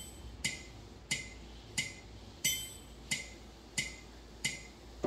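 Metronome ticking at a steady tempo, about one and a half ticks a second, some ticks carrying a brighter ring.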